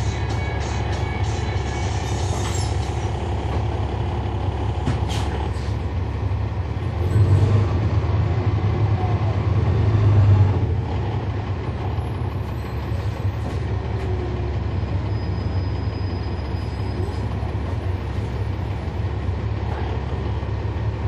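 Cummins ISL9 inline-six diesel of a NABI 40-SFW transit bus running under way, heard from on board as a steady low drone with rattles. About seven seconds in it swells louder as the bus pulls harder, then eases back after about ten and a half seconds.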